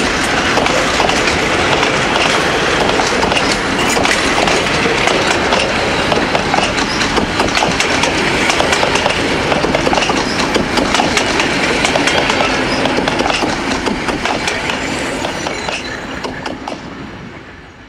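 Heritage passenger carriages rolling past close by, their wheels clicking over the rail joints. The sound fades away over the last few seconds.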